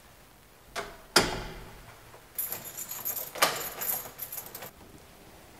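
A click and a door-like clunk about a second in, then keys jangling for about two seconds, with a sharp click in the middle.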